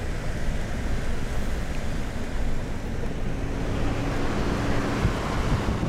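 Heard from inside the cabin, an SUV drives over a rough gravel mountain track: a steady low rumble of engine and tyres on stones, with a faint hum in the middle.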